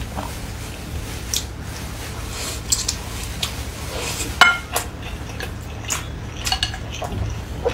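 Eating utensils clicking and clinking against dishes: scattered light taps, with one sharper ringing clink about four and a half seconds in, over a low steady hum.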